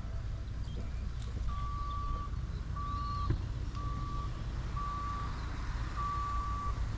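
A vehicle's reversing alarm beeping: one steady tone, about one beep a second, each beep about half a second long, starting about a second and a half in, over a low steady rumble.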